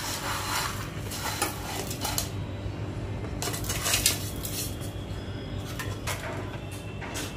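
Chunks of rock sugar (mishri) being scraped across a plate and tipped into a steel mixer-grinder jar: rattling and clinking of the crystals and of the plate against the jar. The loudest rattle comes about four seconds in.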